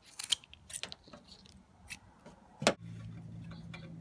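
Scissors snipping through woven thermal sleeving: several sharp snips and clicks, the loudest about two and a half seconds in. A steady low hum follows.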